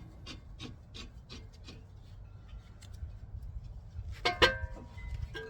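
Ratchet wrench clicking in even strokes about three a second, driving a brake caliper bolt back in, then stopping. A little over four seconds in comes a loud clank of metal on metal that rings briefly.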